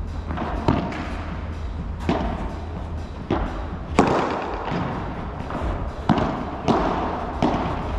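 Padel rally: a ball struck by solid padel rackets and bouncing off the court, heard as sharp, irregular hits roughly a second apart, the loudest about four seconds in, over a steady low hum.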